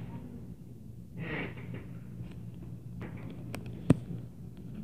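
A single sharp knock near the end, over a steady low hum, with a brief faint breathy rush about a second in.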